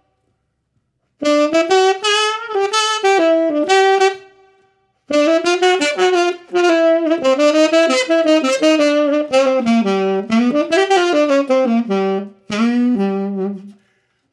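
Tenor saxophone playing rock-and-roll style lines in A, in three phrases. The first phrase starts about a second in, and there are short breaks at about 5 and 12 seconds.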